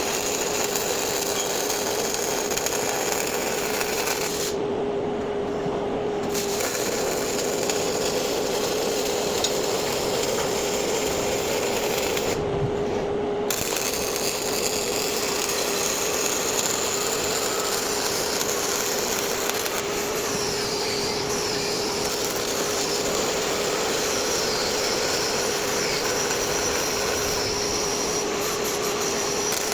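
MIG welding arc running as steady noise, with a steady hum underneath. The high hiss drops out briefly twice, about four and a half and twelve and a half seconds in.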